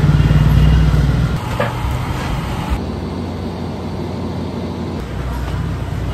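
Steady low roar of a gas burner heating a dye vat, with workshop noise. It is loudest at first, drops back about a second in, and swells again near the end.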